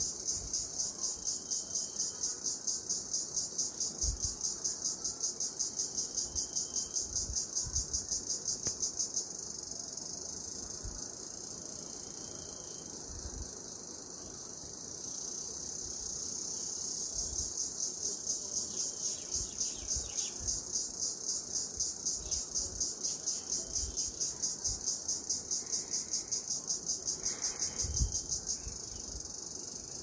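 A chorus of insects chirping, high-pitched, in a fast even pulse of several beats a second over a steady high buzz. The pulsing drops out about a third of the way through, leaving only the buzz, and starts again around the middle. Occasional soft low thumps can be heard.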